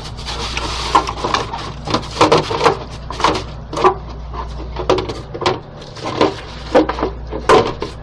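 Wet sponge scrubbing the soapy plastic bowl of a pet water fountain: quick, irregular rubbing strokes, about two a second.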